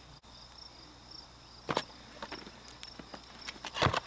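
A few light clicks and scrapes from handling a cardboard ammunition box. The loudest cluster comes near the end as the box is opened. Insects chirp steadily in the background throughout.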